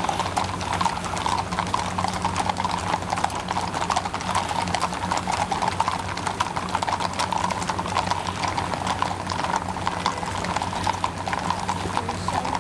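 Many horses walking on an asphalt road, their hooves clip-clopping in a continuous, uneven patter over a steady low hum.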